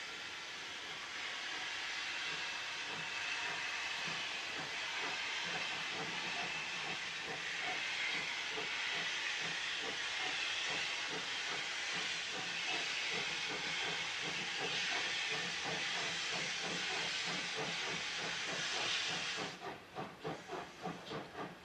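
Steam locomotive working hard as it pulls away: a loud steady hiss of steam escaping at the cylinders, over a fast rhythm of exhaust beats. Near the end the hiss stops suddenly and the sharp exhaust chuffs, about four a second, stand out on their own.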